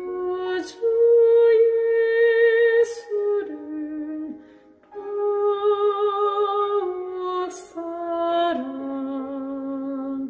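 A woman singing a slow Korean worship song in a classical style, holding long notes with vibrato, over a recorded accompaniment track. Two phrases, with a brief break about four and a half seconds in.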